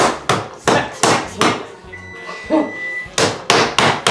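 Hands slapping a lump of homemade play dough on a wooden table, with about three sharp slaps a second and a pause of about a second partway through.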